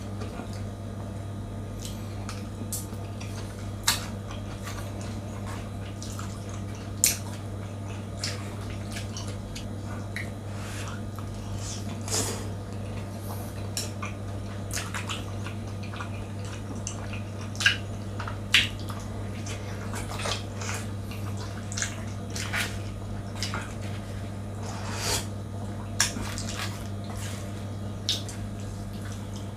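Eating utensils clinking against a bowl, scattered and irregular, as instant noodles are eaten, with a few wetter slurping sounds among the clinks. A steady low hum runs underneath.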